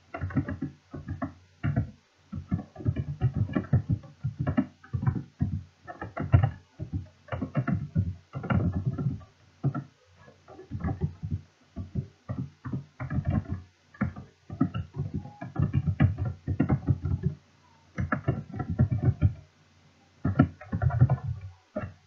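Typing on a computer keyboard: rapid, irregular keystrokes in bursts with brief pauses between them.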